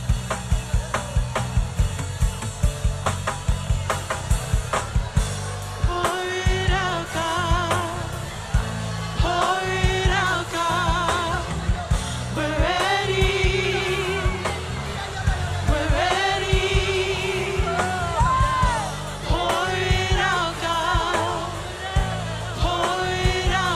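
Pentecostal church band playing fast, upbeat worship music: a quick drum beat over steady bass. From about six seconds in, wavering sung phrases rise over it.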